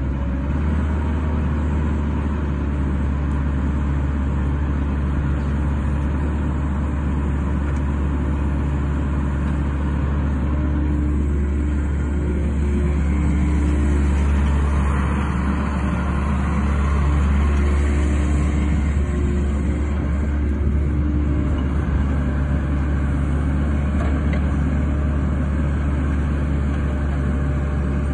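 Cat 308C compact excavator's diesel engine running steadily while the boom and arm are swung and moved, getting a little louder for a while in the middle.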